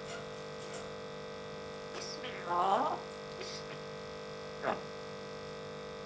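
African grey parrot giving a short call about two and a half seconds in, then a brief sharp chirp near five seconds, over a steady electrical hum.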